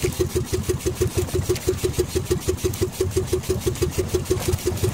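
Outrigger fishing boat's engine running steadily at low speed, an even beat of about six or seven pulses a second.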